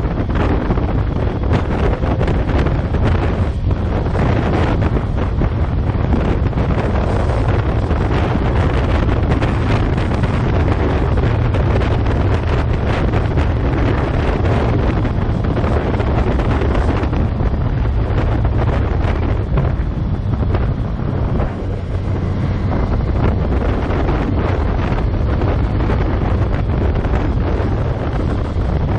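Steady wind noise buffeting the microphone of a camera mounted on a 2015 Yamaha FZ6R motorcycle cruising at road speed, a constant rushing that covers the bike's running sound.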